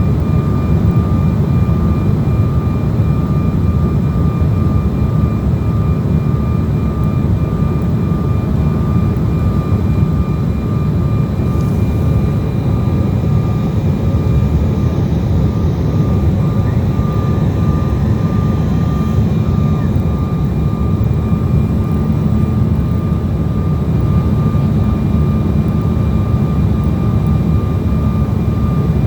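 Airliner cabin noise on approach: a steady, even rumble of engines and airflow, with a faint steady whine above it.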